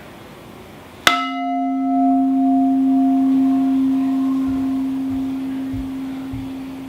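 A large bowl-shaped sculpture struck once about a second in, ringing like a singing bowl. It gives one deep steady tone that slowly fades and is still sounding at the end, while higher overtones die away within a few seconds.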